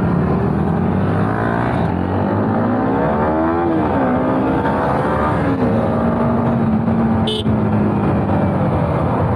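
Sport motorcycle engine heard from the rider's seat, under steady wind rush. The revs rise and fall a few seconds in, then the engine holds a steady note while cruising.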